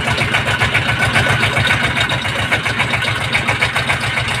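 A river trawler's engine running steadily on board, with a fast, even beat.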